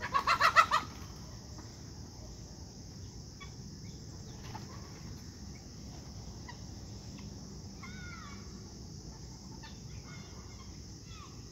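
Chickens calling: a loud run of five or six rapid squawks in the first second, then scattered softer clucks and calls.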